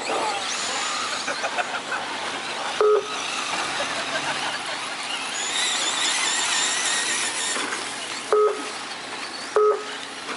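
Radio-controlled short-course racing trucks running on a dirt track, their motors and drivetrains whining high, loudest in the middle. Short two-tone electronic beeps sound three times, the loudest things heard: once about three seconds in and twice near the end.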